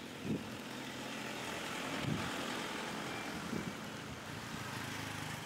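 A pickup truck driving past on the street, its engine and tyre noise growing louder over the first two seconds and then holding. A few soft low thumps are heard along with it.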